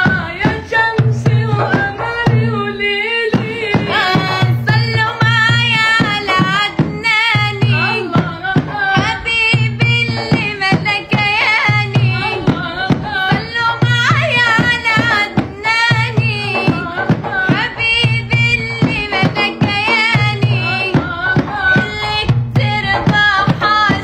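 A woman singing an Arabic nasheed, an Islamic devotional song praising the Prophet, in a wavering, ornamented voice. Under her there is a steady low drumbeat about once a second.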